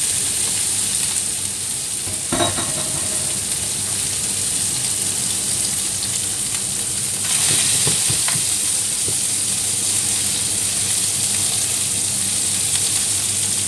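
Small whole fish sizzling as they pan-fry in oil, a steady hiss that grows louder about seven seconds in. A few light clicks come from chopsticks turning the fish in the pan.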